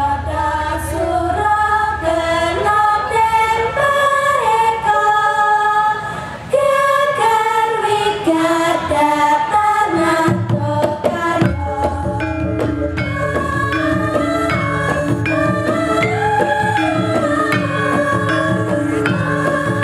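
Javanese gamelan ensemble playing, with bronze metallophones struck with mallets and kendang drums, under a group of female voices singing the melody together. The low drum and gong sounds get stronger about halfway through.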